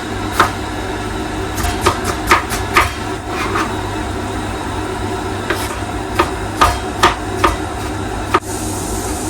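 Hard-boiled eggs being tapped on a hard surface to crack their shells for peeling: a string of sharp, irregular taps over a steady low hum.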